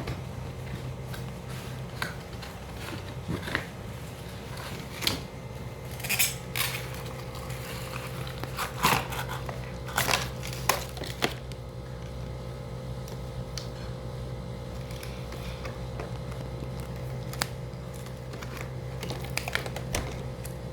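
A toy package being opened by hand: scattered crinkles, clicks and rustles of plastic and cardboard, busiest in the middle, over a steady low hum.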